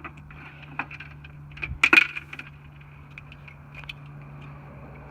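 Light metallic clicks and clinks of tools and parts being handled at the opened door's handle assembly of a Tesla Model S, with a short cluster of sharper clinks about two seconds in, over a low steady hum.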